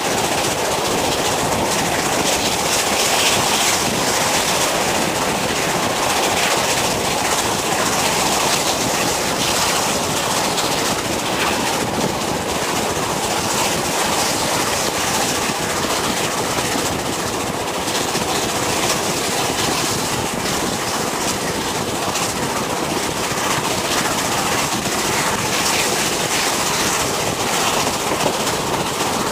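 Steam-hauled passenger train running at full speed, heard from an open carriage window: a loud, steady rush of air and the rolling noise of the coaches' wheels on the rails.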